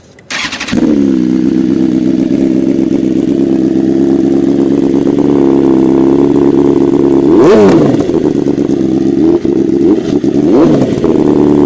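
BMW S1000RR's inline-four engine breathing through an Akrapovič full exhaust system: it fires up about half a second in and settles into a steady idle. The throttle is blipped twice, briefly, about two-thirds of the way through and near the end.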